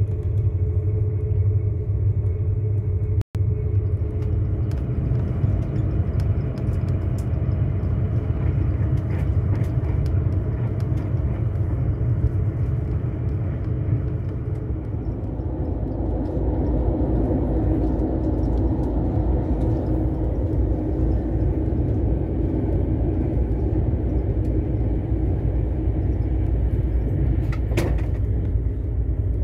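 Steady low rumble of a passenger train running along the track, heard from inside the carriage. About halfway through the running noise turns rougher, and near the end there are a few brief clicks.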